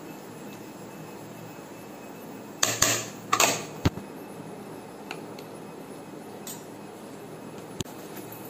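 A steel spoon clinking and scraping against a steel bowl and a plate while curry is served, a short cluster of clatters about three seconds in and a few lighter ticks later.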